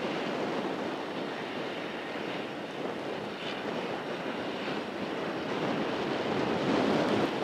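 Case IH 535 Quadtrac's Cummins 14.9-litre six-cylinder diesel running under load as it pulls a 40 ft Great Plains Turbo-Till vertical tillage rig through dry soil, a steady drone that grows louder as the tractor approaches.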